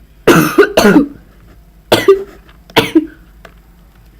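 A person coughing: four loud, harsh coughs, two close together near the start, then one about two seconds in and another just before three seconds.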